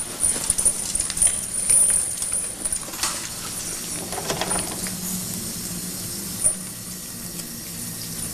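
Light metallic clinks and rattles as prisoners jostle over handed-out food, thickest in the first three seconds, over a low steady hum.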